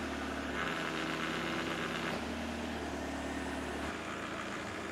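An engine running steadily while the newly plumbed hydraulic system works the snowblower mount. A higher hum joins about half a second in and drops away about two seconds in.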